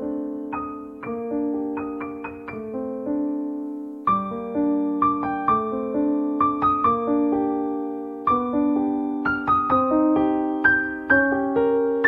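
Background music: solo piano, single notes and chords struck and left to ring, growing a little busier near the end.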